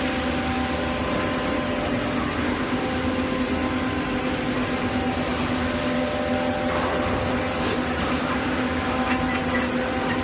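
Steady hum of factory machinery, with a held low tone and several fainter higher tones, and a couple of light clicks near the end.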